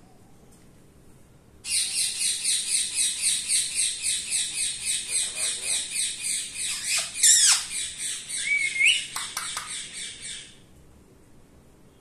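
Rose-ringed (Indian ringneck) parakeet calling in a fast, even run of high-pitched squawks, about five a second, starting about two seconds in and lasting some eight seconds, with a few longer sliding calls near the end.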